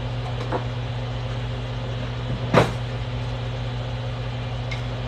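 Kitchen clatter: one short, sharp knock about two and a half seconds in, with a faint click near the start, over a steady low hum.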